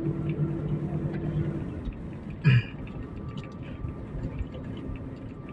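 Steady engine drone and road rumble heard from inside a moving vehicle; the engine's tone fades back after about two seconds. A brief short vocal sound, falling in pitch, comes about two and a half seconds in.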